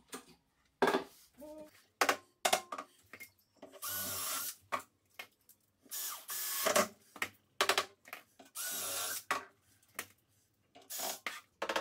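Cordless drill driving screws in three short steady runs, joining a base cabinet to the one beside it, with knocks and clicks of handling the cabinet in between.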